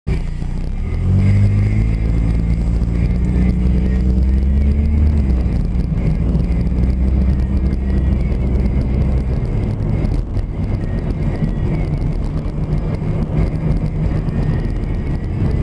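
Car engine and road noise while driving slowly. The engine note climbs as the car pulls away about a second in, drops around five seconds as it eases off, then holds at a steady low rumble.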